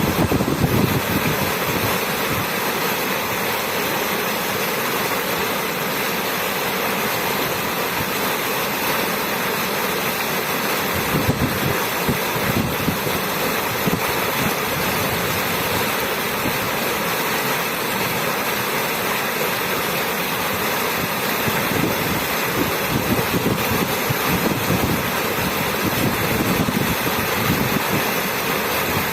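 Running water flowing steadily, an even, unbroken rushing noise.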